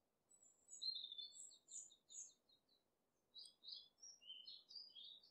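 Faint bird chirping: a run of quick, high chirps starting just after the start, a short pause about halfway, then more chirps.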